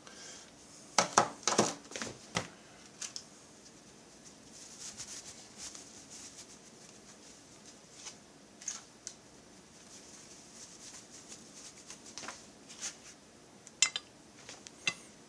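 Heat gun blowing with a faint steady hiss while heating a chainsaw crankcase's bearing seat, with a quick cluster of light metallic clicks about a second in and a few single clicks later as parts are handled.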